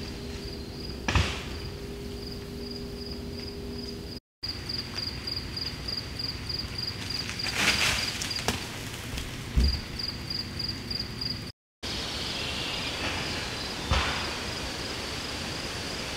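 Outdoor ambience with a steady, high, rapidly pulsing trill, broken by a few sharp knocks and a brief rustle a little before the middle.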